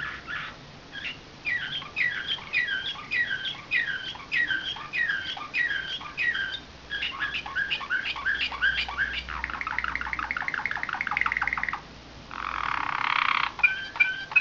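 Slavujar song canary, a canary bred and trained for nightingale-style song, singing a long phrase. It opens with repeated falling whistled notes that quicken, then a fast even trill about two-thirds of the way in. A short harsh, rasping phrase follows, and the song then goes back to clear notes.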